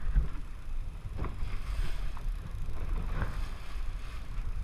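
Low, steady rumble of a fishing boat at sea, with wind buffeting the microphone and a few faint knocks about once a second.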